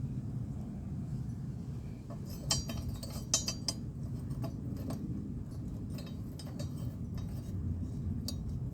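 Light metallic clinks and taps from a steel lawnmower blade and its mounting hardware being handled and set into place, a few louder clinks about two and a half and three and a half seconds in.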